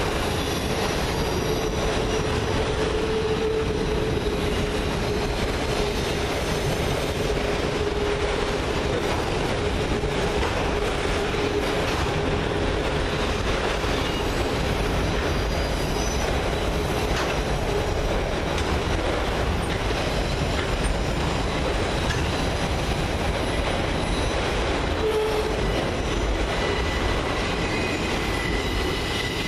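Autorack freight cars of a CSX train rolling past: a steady rumble and clatter of steel wheels on rail, with a drawn-out wheel squeal through the first ten seconds or so and a short one again near the end.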